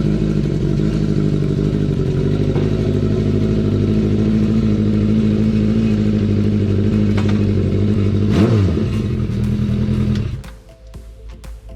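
Honda CB400 Four's inline four-cylinder engine running steadily through a Yoshimura short exhaust whose silencer has had its glass-wool packing removed. It gives one quick rev about eight and a half seconds in, and the sound cuts off about ten seconds in.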